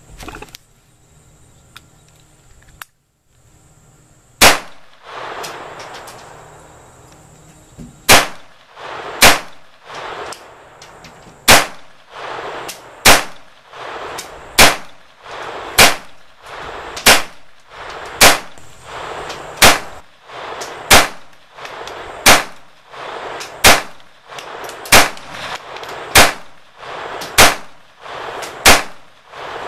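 Phoenix Arms HP22A .22 LR pistol firing. One shot comes about four seconds in, then a steady string of about sixteen more at roughly one every 1.3 seconds, each sharp crack trailing off in a short echo.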